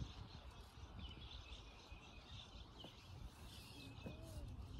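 Quiet outdoor ambience with a few faint bird chirps.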